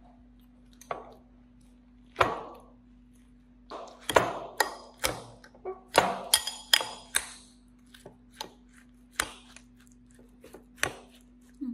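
Metal spoon knocking against a ceramic bowl as muskmelon is broken up and mashed in it: a string of sharp clinks and thuds, thickest about four to seven seconds in.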